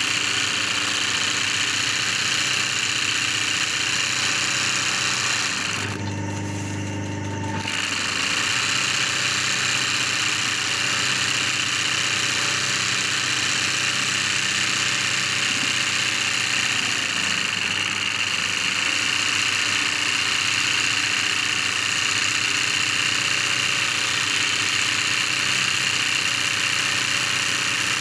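Sewing-type embroidery machine running steadily at speed as it stitches through fabric held in a hoop. About six seconds in the stitching noise stops for under two seconds, leaving only a low motor hum, then starts again.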